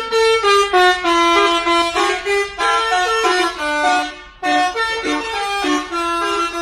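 Bus 'telolet' horn, a multi-trumpet air horn, playing a quick tune of stepping notes, with a short break about four seconds in.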